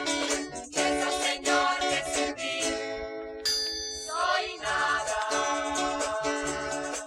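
Music from a Spanish-language gospel song, with singing over plucked strings and a steady beat; around three seconds in the band thins briefly before a vocal phrase comes back in.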